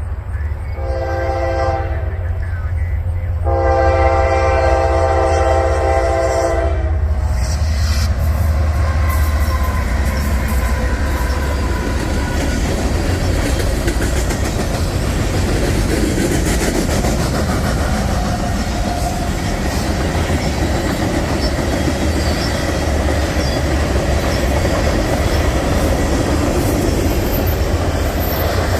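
Diesel locomotive horn sounding two blasts, the second longer, as a train approaches, then the train passing close by: a steady low engine rumble with wheels clacking and rattling over the rails.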